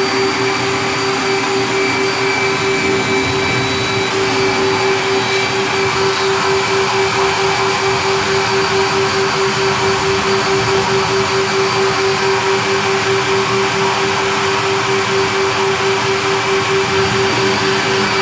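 Duct Master 3 duct-cleaning vacuum running steadily through its suction hose, pulling lint and dust out of a clogged dryer vent. It makes a loud rushing air noise with a steady hum.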